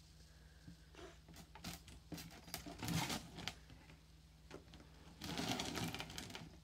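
A cat's plastic cone collar scraping and bumping against a cardboard box as the cat pushes into it, with scattered clicks and two bursts of rustling, one about three seconds in and one near the end.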